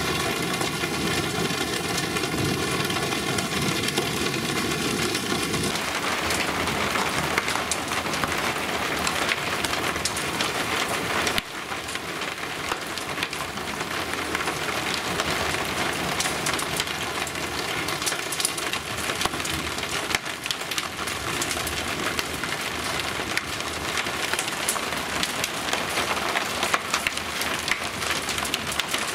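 Steady rain falling on roofs and a lawn. The sound drops a little quieter at a cut about eleven seconds in.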